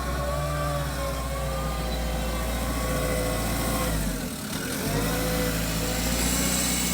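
Vehicle engine running steadily, its note dipping in pitch briefly about four seconds in and then picking back up.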